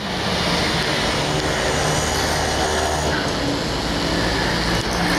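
Boeing 747-200 freighter's four Rolls-Royce RB211 turbofans running on the runway: a steady rushing jet noise with a faint low hum underneath.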